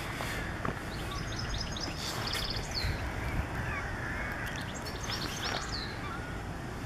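Songbirds chirping and singing in quick high trills, in two bursts about a second in and again around five seconds in, with a few lower sliding notes between, over a steady low rumble of outdoor background noise.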